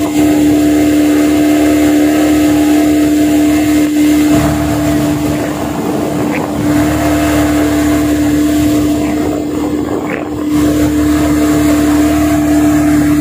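Yamaha 40 hp outboard motor running steadily under way, one constant engine note that eases slightly in the middle and picks up again near the end, on a power test after its carburettor and diaphragm were cleaned.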